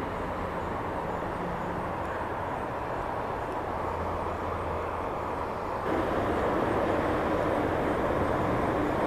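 Steady outdoor background rumble with a low hum, getting a little louder about six seconds in, where a faint steady tone joins it.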